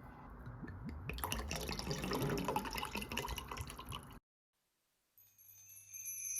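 Running water splashing, with small clicks through it, that cuts off abruptly about four seconds in. Near the end, music begins to fade in.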